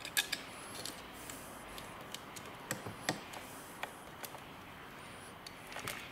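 Small clicks and taps of plastic wire-harness connectors and cables being handled and plugged in on an LCD monitor's power supply board, with sharper clicks near the start and about three seconds in.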